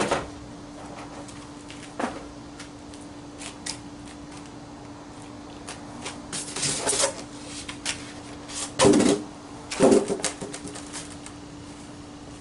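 Parts being unpacked from a cardboard box: rustling and scattered clicks, then two loud thuds about a second apart near the end, over a faint steady hum.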